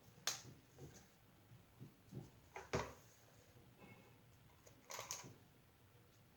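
A few scattered light clicks and knocks, as of small objects being handled, in a quiet room; the loudest comes a little under three seconds in.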